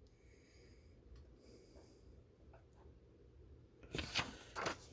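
Faint room tone, then near the end two short rustles of paper and cardboard as the box's paperwork is handled.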